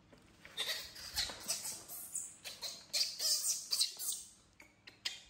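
Baby monkey screaming in a string of shrill, high-pitched squeals for about four seconds, then a few short squeaks near the end.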